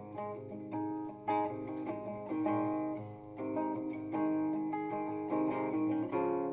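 Acoustic guitar played by plucking, a stream of single notes and chords ringing over one another.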